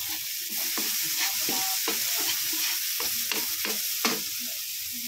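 Chopped chilies and onion leaves sizzling in a hot wok while a metal spatula stirs and scrapes them, with scattered clacks of metal against the pan over a steady frying hiss.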